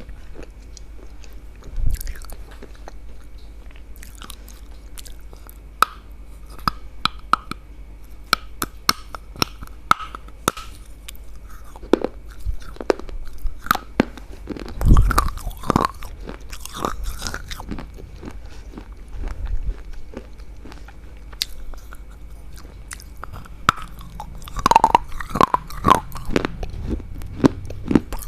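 Close-up biting and chewing of crisp food: irregular sharp crunches, denser near the end, over a steady low hum.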